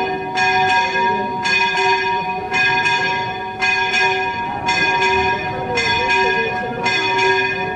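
Church bell ringing in steady repeated strokes, about one a second, each stroke still humming when the next one lands.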